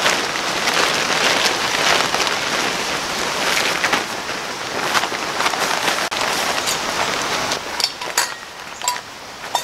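Plastic camouflage tarp crinkling and rustling as a bedroll is rolled up tightly and bundled, with dry leaves crunching underneath. In the last couple of seconds it thins to scattered clicks and rustles as the bundle is strapped.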